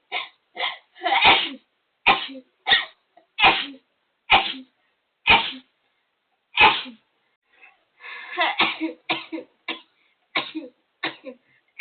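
A person sneezing in a rapid fit: about fifteen short, sharp sneezes one after another, roughly one every half second to second, with a brief gap near the middle and a tighter run of sneezes about eight seconds in.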